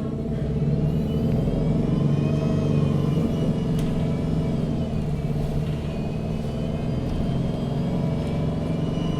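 MAN NG 313 CNG articulated bus under way, heard from inside: its gas engine runs steadily, with a higher drivetrain whine that rises and then falls twice as the bus picks up speed and eases off.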